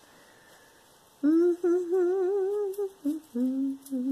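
A woman humming: a long wavering note starting about a second in, then a shorter, lower phrase near the end.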